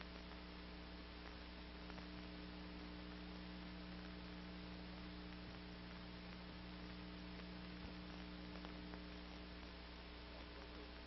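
Faint, steady electrical hum with hiss, with a few faint ticks: the background noise of an old film soundtrack in a gap in the narration.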